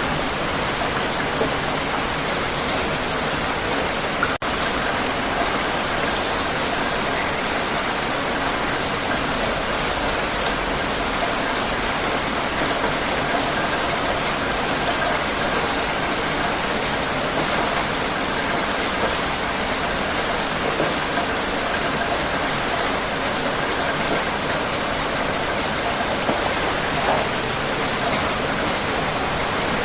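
Heavy rain falling steadily, an even hiss of water on surfaces, with a momentary break about four seconds in.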